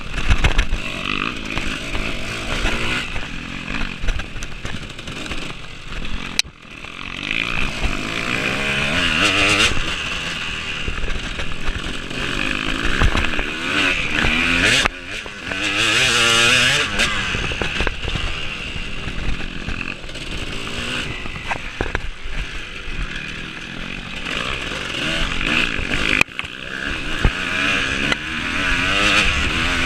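Off-road racing motorcycle engine revving hard and changing pitch again and again as it is ridden at race pace, the throttle chopped off abruptly a few times before picking up again.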